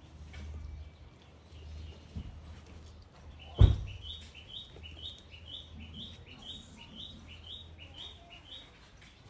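A single sudden loud sneeze from the animal about three and a half seconds in. It is followed by a bird chirping about twice a second, each chirp a short rising note, until near the end.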